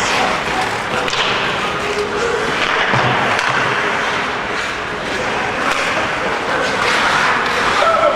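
Ice hockey play on a rink: skate blades scraping the ice, with scattered stick and puck clicks and faint shouts from players, all in a steady wash of arena noise.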